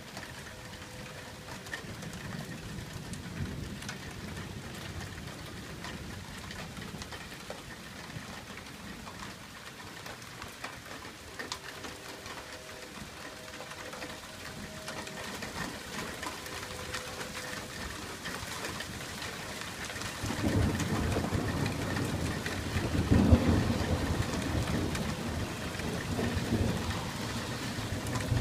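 Thunderstorm: steady rain falling on pavement, with rolling thunder. A faint low rumble comes early, then about two-thirds of the way in a loud, long rumble of thunder builds, peaks a few seconds later and rolls on to the end.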